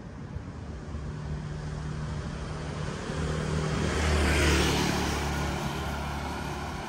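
A car passing close by: a low engine hum and tyre hiss that build to a peak about four and a half seconds in, then fade away.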